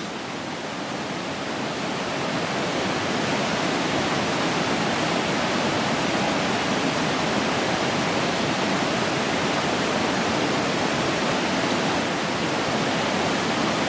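Waterfall rushing: a steady, even hiss of falling water that swells slightly over the first couple of seconds.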